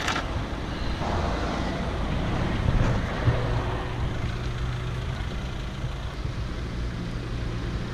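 Car engine with a shortened exhaust that has no intermediate or rear muffler, catching about three seconds in and then running with a steady low drone, over road and wind noise.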